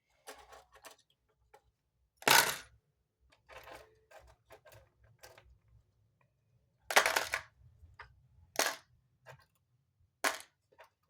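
Lead jig heads and other small tackle clinking and rattling in a plastic tackle box: scattered light clicks with about four louder clacks.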